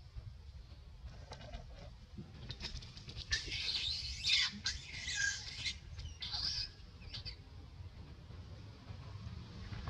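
Long-tailed macaques squealing: a run of harsh, high-pitched squeals starting about three seconds in, with a few shorter ones near the end of the run.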